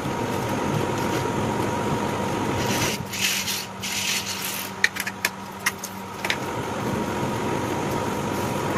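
Industrial sewing machine stitching piping along a blouse neckline, running steadily with its motor humming. Near the middle the stitching drops away and a few sharp clicks come through.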